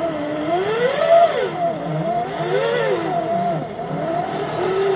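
Backyard railroad locomotive's motor running under load as it pushes a snow plow through heavy, wet snow, its pitch rising and falling in slow swells every second or two.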